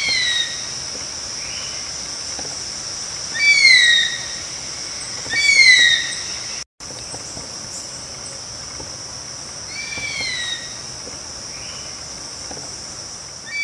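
Short whistled bird calls, each rising then falling, repeating every few seconds over a steady high insect drone. The sound cuts out completely for a moment about halfway through.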